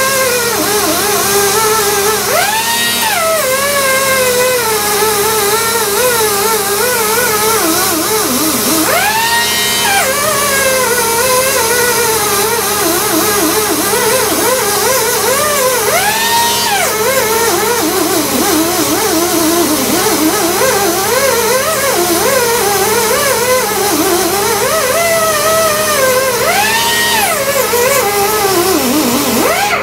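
Background music with a gliding, wavering lead melody, over a steady hiss.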